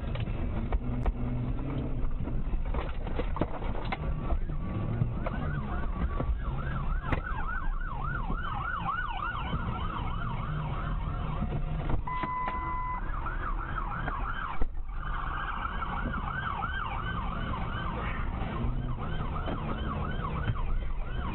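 Police siren in a fast yelp, its pitch rising sharply over and over, about three times a second, over steady road and engine noise from inside a moving car. A short steady electronic tone cuts in about halfway through.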